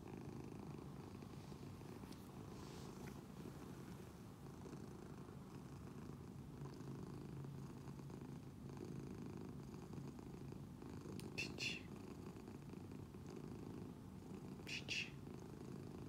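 Domestic cat purring steadily while it lies on its back being stroked. A few brief, sharp clicks come through: one about two-thirds of the way in and two near the end.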